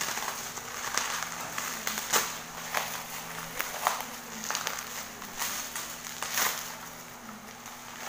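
Plastic bubble-wrap packaging crinkling and crackling as it is pulled and unwrapped by hand, with scattered sharp crackles.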